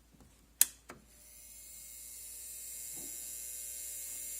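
Quad 44 preamplifier switched on with a click, then a high-pitched whine, several steady high tones over hiss, that swells for about three seconds. Since an upgrade kit was fitted it whines like this at power-up, which the owner suspects comes from leads hooked up incorrectly.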